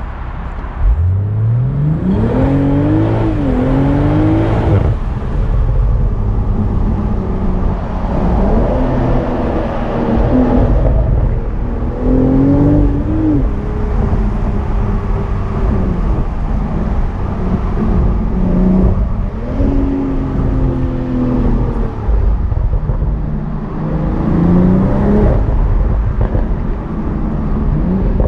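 2021 BMW Z4 M40i's turbocharged 3.0-litre inline-six under repeated hard acceleration. The engine note climbs steeply from about a second in, then rises and falls in several pulls as the revs build and drop back through the gears.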